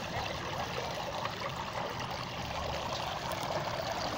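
Water running steadily in a stone globe fountain, trickling over the basin around the floating sphere.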